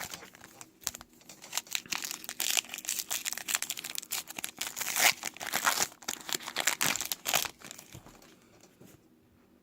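Crinkling and rustling of trading cards and their packs being handled during a box break, dense for several seconds and dying away about eight seconds in.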